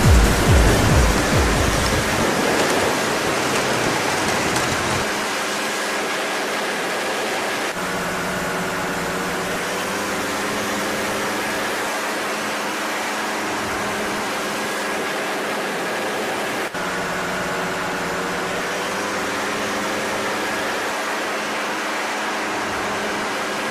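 Steady drone of a paramotor trike's engine and propeller with wind rush, heard onboard in flight. The pitch and tone shift slightly a few times.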